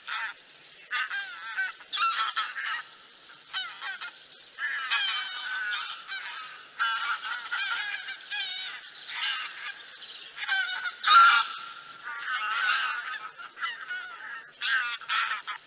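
A flock of wild geese calling: many overlapping honking calls in irregular bouts with short pauses between them.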